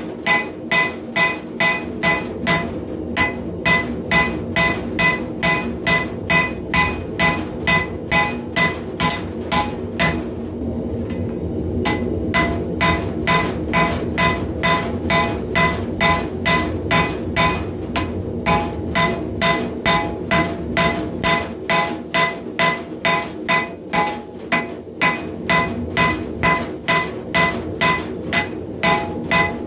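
Hand hammer striking a glowing high-carbon steel bar on an anvil, about two blows a second, with the anvil ringing after each blow. The hammering pauses for about two seconds around a third of the way in, then carries on.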